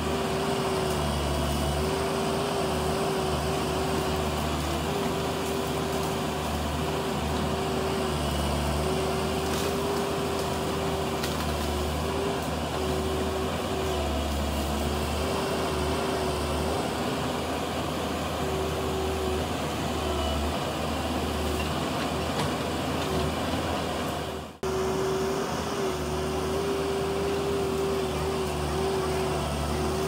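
Diesel engine of heavy earthmoving machinery running steadily, a low rumble with a steady tone through it. The sound drops out for a moment about three-quarters of the way through.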